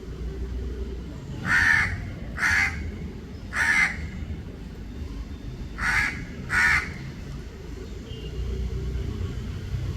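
Crow cawing: five harsh caws, three spaced about a second apart, then after a pause two more in quick succession, over a low steady background rumble.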